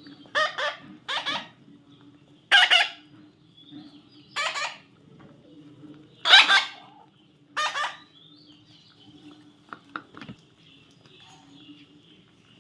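Parrot squawking: six short, harsh calls at uneven intervals over about eight seconds, then a few faint clicks.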